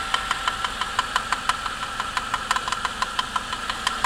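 Suzuki J20A 2.0 inline-four engine running cold with a knock, a fast run of sharp taps several times a second over the engine's hum. The owner, who hears it only when the engine is cold, takes it for spun crankshaft bearing shells or piston skirt slap, not the timing chain, and likens it to a loose nut rattling.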